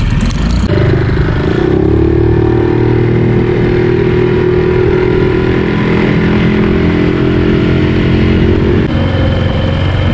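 Suzuki outboard motor driving a small dinghy. Its engine note rises about a second in and holds steady, then drops back near the end as it is throttled down.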